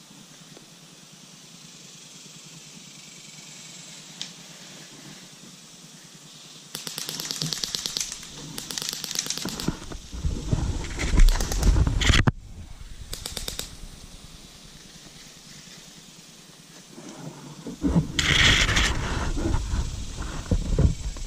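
Airsoft guns firing rapid bursts, starting about seven seconds in and again near the end, over a heavy low rumble.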